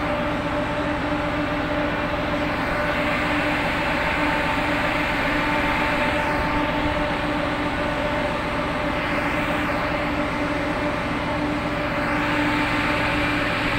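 Boat engine running steadily: a constant mechanical hum with an even rushing noise over it.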